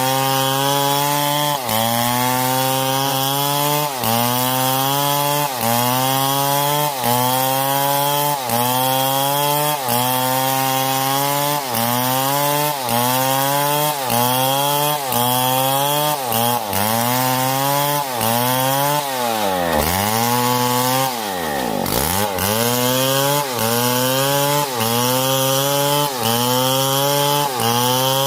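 Stihl MS661 two-stroke chainsaw running hard, its engine pitch climbing and then falling back over and over, about every one and a half seconds. Around two-thirds of the way in the pitch sinks much lower and climbs back up.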